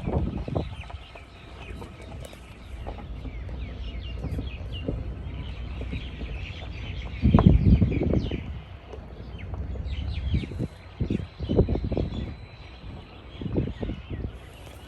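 Birds chirping and twittering outdoors, many short high calls overlapping throughout, with a few louder low bursts about halfway through and near the end.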